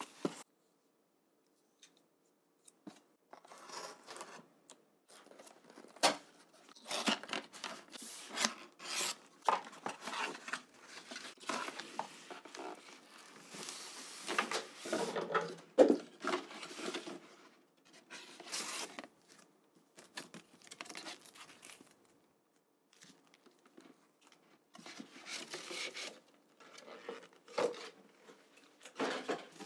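Hands unboxing a gaming mousepad: irregular rubbing, scraping and tearing of packaging, with a few sharp clicks and short pauses.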